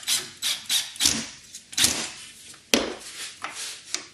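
Cordless screwdriver driving a screw through a plastic roller-blind bracket into soft wood in a run of short, sharp bursts, with one sharp click about three quarters of the way in.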